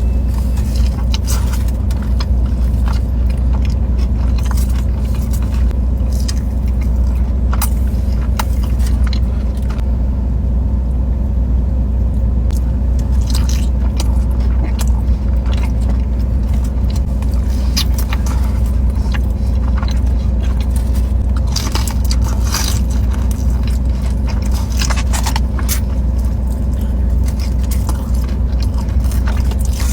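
Close-up eating sounds: biting and chewing food, with many short crunchy clicks scattered throughout, over a steady low rumble.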